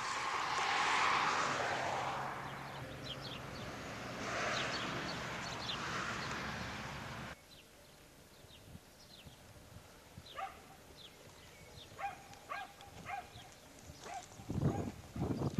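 Outdoor ambience of a rushing noise that swells and fades, with birds chirping over it, cut off abruptly about seven seconds in. Then quieter bird chirps, and a few low thumps near the end.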